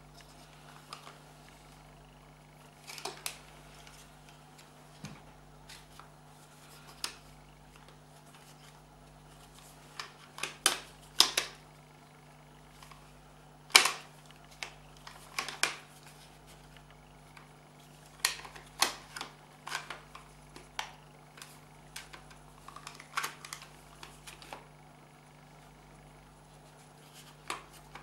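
Irregular sharp clicks and knocks of the hard plastic parts of a reverse light switch being handled and pressed into place during reassembly, coming in loose clusters, the loudest about halfway through.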